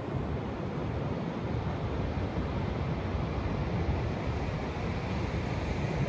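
Pacific surf breaking on a sandy beach: a steady wash of noise, with wind rumbling on the microphone.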